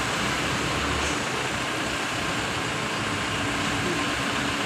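A vehicle's engine idling while stopped: a steady, even running noise with a faint constant hum.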